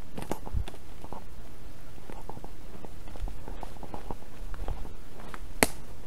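Footsteps crunching and rustling through fallen leaf litter, an irregular run of short crackles, with one sharper crack near the end.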